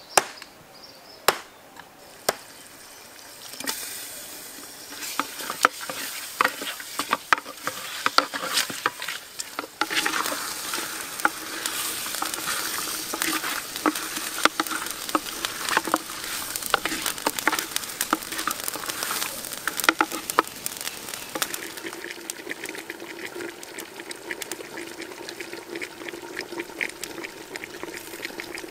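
A few sharp knife chops near the start, then spiced duck meat sizzling and frying in a clay pot, crackling densely with scattered clicks of stirring. The sizzling grows louder about 10 seconds in.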